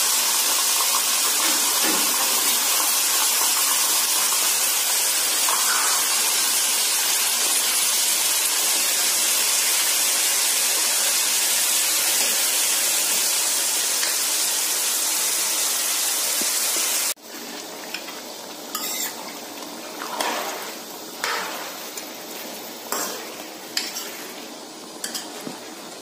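Mutton pieces sizzling in hot oil and ghee in a kadhai, a loud, even hiss. About 17 seconds in it cuts abruptly to a quieter sizzle, with a metal ladle scraping and clinking against the pan several times as the meat is stirred.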